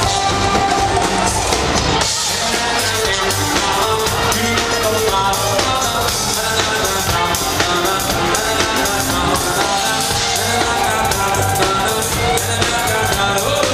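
Live band playing upbeat Jewish dance music: a drum kit keeping a steady beat and an electric bass guitar, with a man singing lead into a microphone. The music is loud and runs without a break.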